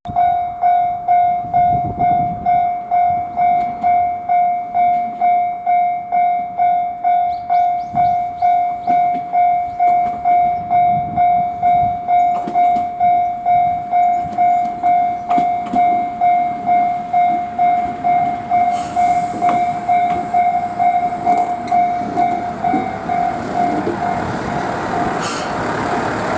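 Japanese level-crossing warning bell ringing, an evenly repeating electronic ding at a little under two strokes a second. A train's running noise builds under it toward the end.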